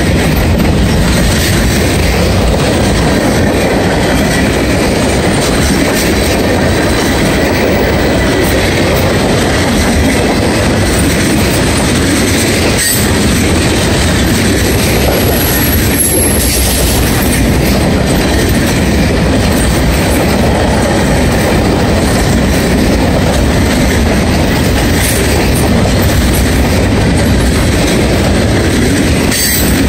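Freight cars of a mixed manifest train rolling past close by: a steady loud rumble of steel wheels on the rails, with clacking over the rail joints.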